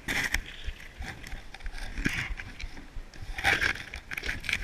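Loose snow scraping and crunching right against a skier's body-worn action camera as he moves through churned avalanche snow, in irregular bursts that are loudest at the start and about three and a half seconds in. Under it, wind buffets the microphone with a low flutter.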